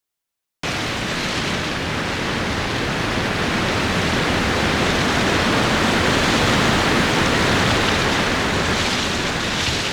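Strong wind: a steady rush of noise that starts abruptly about half a second in and swells slightly towards the middle.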